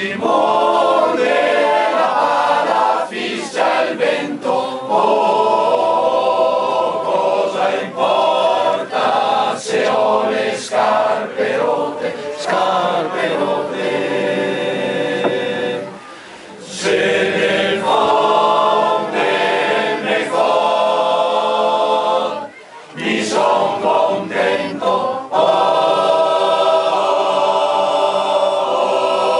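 Mixed choir of men's and women's voices singing a cappella, holding long chords in phrases. The singing breaks off briefly twice, a little past halfway and again about six seconds later.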